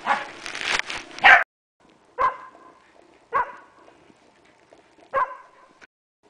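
Pembroke Welsh Corgi barking three times, a second or two apart. Before the barks there is a loud rushing noise that cuts off suddenly about a second and a half in.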